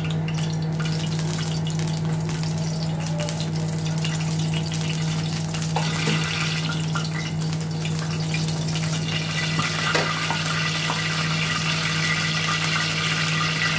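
Oil and melting ghee heating in a large blackened frying pan, sizzling, the sizzle growing denser from about halfway through. Underneath is a steady low hum.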